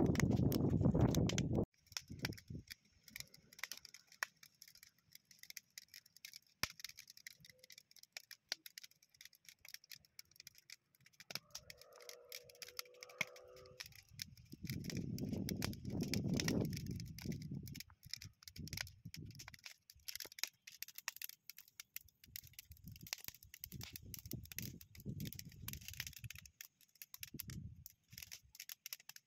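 Irregular metallic clinking and rattling, with low rumbling bursts now and then, while scrap zinc is handled in a pot used as a melting crucible.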